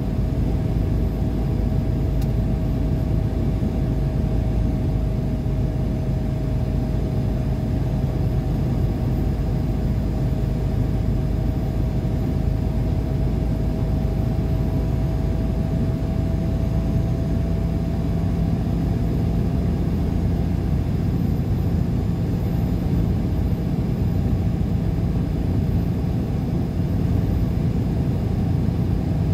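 Steady road and engine noise of a car cruising on a highway, heard inside the cabin, with a faint whine that rises slightly in pitch over the first twenty seconds.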